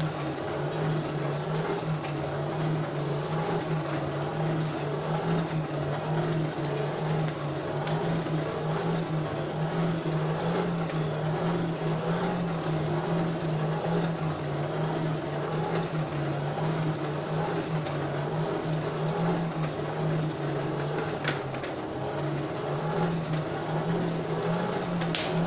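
Coal forge blower running steadily with a low hum, driving air into the fire, with a few light clicks.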